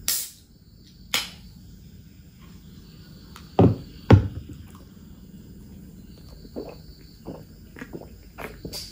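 Close-miked sounds of a person drinking from an aluminium soda can. There are two loud knocks about four seconds in as the can is handled, then a run of soft gulps near the end as she drinks.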